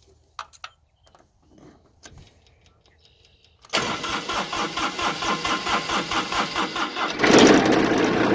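A few light clicks, then the Kubota ZD28 zero-turn mower's three-cylinder diesel is cranked by its starter for about three and a half seconds, pulsing about four times a second, and catches and runs near the end. The starter now engages because its unplugged signal wire has been reconnected.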